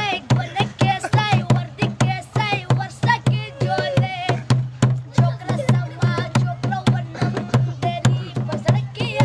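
A boy singing with a wavering, ornamented voice over a fast, even beat slapped by hand on a plastic jerrycan used as a drum, each slap giving a sharp crack over a low boom.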